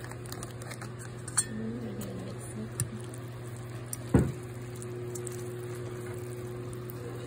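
Metal fork stirring sauced instant noodles on a ceramic plate: soft wet mixing with a few clicks of the fork against the plate. The loudest is a knock about four seconds in, over a steady low hum.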